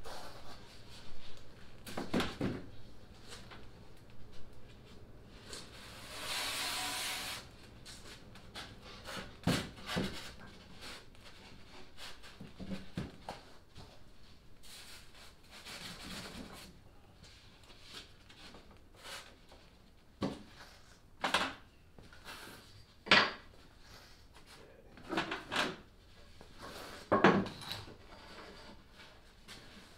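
Plywood panels being handled and shifted on a workbench: scattered wooden knocks, bumps and scrapes of varying loudness, with a short hiss about six seconds in.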